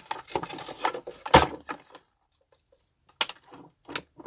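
A vacuum cleaner's casing being handled during disassembly: a quick run of clicks and knocks, the loudest about a second and a half in. A pause of about a second follows, then a few more clicks.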